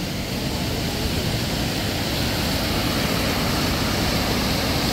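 Kaaterskill Falls rushing: a steady, even sound of falling water that grows slightly louder.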